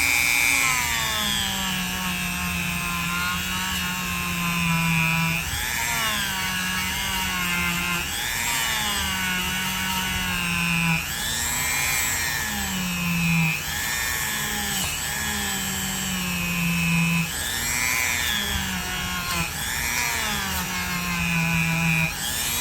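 Dremel rotary tool running at high speed with a soft polishing pad loaded with rubbing compound. Its pitch sags and recovers every second or two as the pad is pressed against the metal and eased off.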